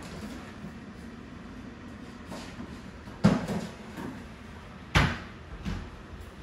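Kitchen cupboard doors and containers being handled: two sharp knocks about three and five seconds in, with a few lighter clatters between them.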